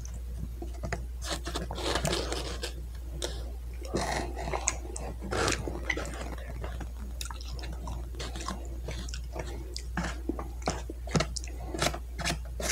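Close-miked mukbang chewing of a mouthful of chimichanga and burrito: irregular wet smacks and mouth clicks throughout, over a steady low electrical hum.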